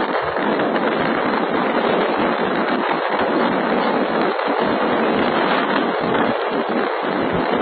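Wind buffeting a phone microphone: a loud, steady, crackling rush of noise with no pauses.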